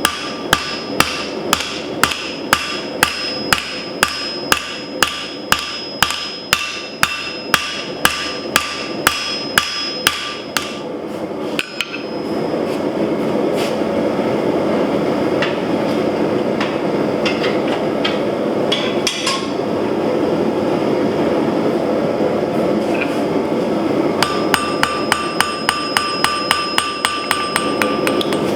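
Hammer blows on steel over an anvil, about two a second with a bright ring, for the first ten seconds. A steady rushing noise follows for about twelve seconds, and near the end comes a quicker run of ringing hammer blows, three or four a second.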